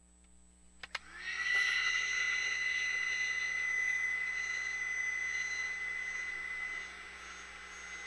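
Seekone 600 W heat gun switched on with a click about a second in, its fan spinning up with a short rising whine and then blowing steadily as it heats shrink tubing over a crimped battery-cable lug. It gets quieter near the end.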